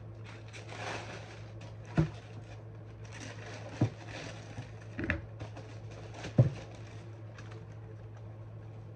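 Tissue paper rustling and four sharp knocks as sneakers are handled and lifted out of their cardboard box, the last knock the loudest, over a steady low hum.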